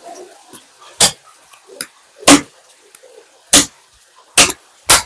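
Five sharp kitchen knocks, a little over a second apart, each short and loud, with a slight ring on one of them.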